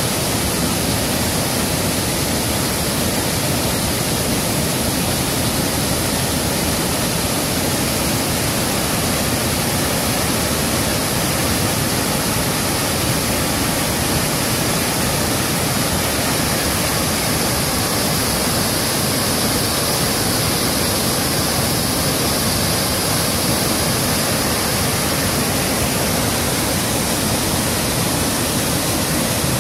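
Fast river water rushing over rocks, a steady, unbroken rush.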